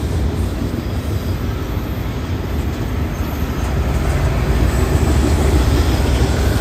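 CN freight train rolling past: a steady low rumble of steel wheels on the rails, growing a little louder after about four seconds.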